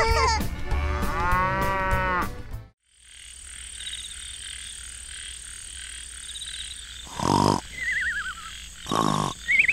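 A cheerful melody stops about a quarter of the way in, and a steady night-time chorus of chirping frogs or insects takes over. Over it a cartoon snore sound effect comes twice, each snore followed by a wobbly whistle.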